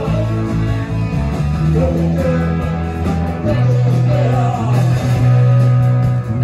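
Background music: a song with guitar and a singing voice over a steady bass line.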